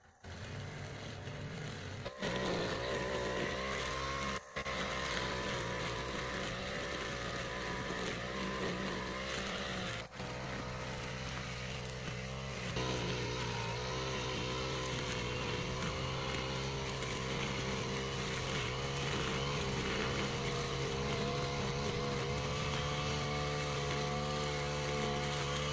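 Petrol brush cutter running steadily at high revs, its spinning head cutting through weeds and grass. The engine sound drops out briefly twice.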